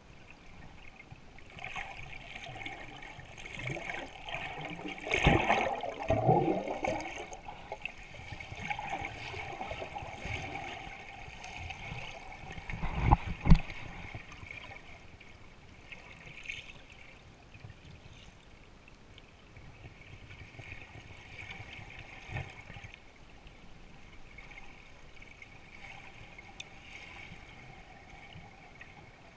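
Water gurgling and swishing heard underwater, muffled, with louder bursts of bubbling about five seconds in and a low thump around thirteen seconds in.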